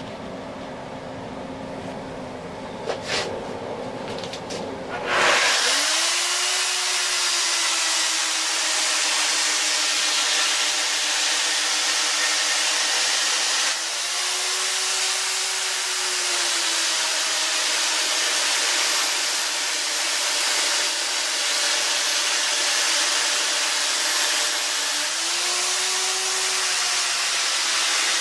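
A few clicks, then about five seconds in an electric chainsaw starts and runs steadily while cutting into a cedar log. Its motor pitch rises briefly three times.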